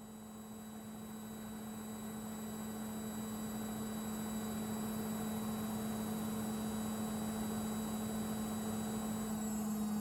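Front-loading washing machine running with a steady electric hum, getting gradually louder.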